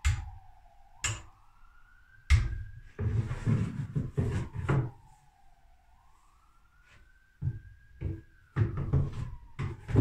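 Wooden cage-base cabinet door knocking shut, a few sharp wooden knocks, then a wooden floor tray scraping and rattling as it is pulled out of the base and pushed back in. Under it a faint siren wails slowly down and up.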